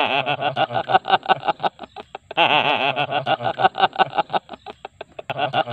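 A man laughing hard in a rapid string of short, pitched bursts, with one longer, high, wavering laugh about two and a half seconds in.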